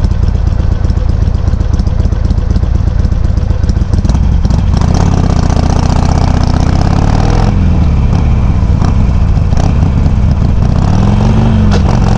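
Harley-Davidson Sportster 883's air-cooled V-twin, heard through Customer slip-on exhaust tips with the baffles set low, pulsing at low revs. About four and a half seconds in it pulls away, the revs rising and falling with the shifts, and near the end they rise and drop again.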